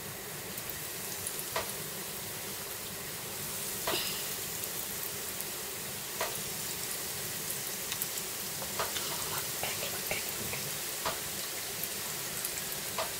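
Hot oil sizzling steadily as breaded chicken lollipops are deep-fried in a small pan, with occasional sharp crackles. The sizzle grows a little louder about four seconds in as more pieces go into the oil.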